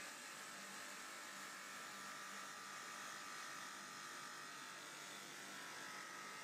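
Automatic multi-station sanding machine for stainless steel stock pots running steadily: an even hiss from the electric motors and sanding heads, with a high whine through it.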